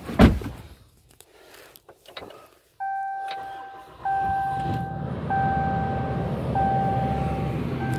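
A sharp thud inside a 2018 Ram 3500 pickup's cab, then after a short quiet the dashboard warning chime starts about three seconds in: one steady tone repeated in long beeps about every second and a quarter. A low engine rumble sets in about a second after the chime begins.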